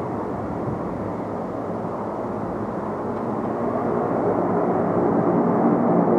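Ilyushin Il-22M's four Ivchenko AI-20 turboprop engines running with a steady propeller drone, growing louder from about halfway through.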